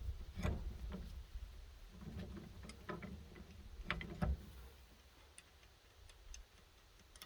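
A few faint, scattered clicks and knocks over a low rumble, dying away to near quiet about halfway through.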